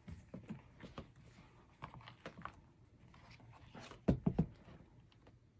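Leather planner covers handled by hand: scattered rustling and light taps, with a quick run of three knocks about four seconds in as the planner is lifted and opened.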